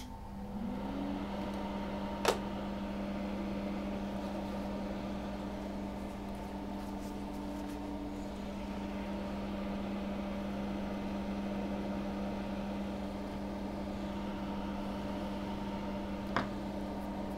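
Small electric motor or blower switched on, spinning up briefly and then running with a steady hum. A single sharp click comes about two seconds in and another near the end.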